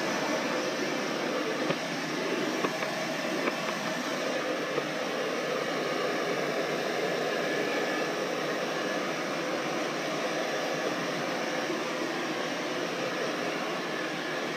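Handheld hair dryer blowing steadily on a dog's coat: an even rush of air with a faint high whine, and a few small clicks in the first five seconds.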